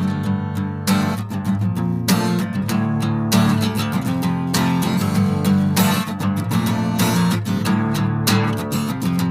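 Instrumental break in a rock song: strummed acoustic guitar chords with a steady rhythm, no singing.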